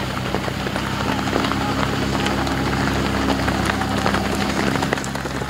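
Running footsteps of a pack of cross-country runners, many quick overlapping footfalls on a paved path, over a steady low hum.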